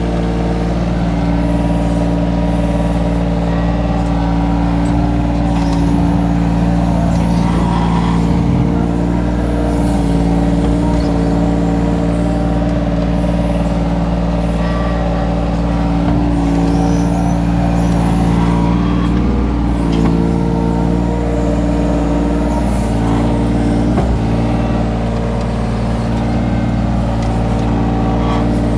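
Kobelco mini excavator's diesel engine and hydraulics running steadily as it digs into a soil bank. The engine note shifts a few times as the load on the boom and bucket changes.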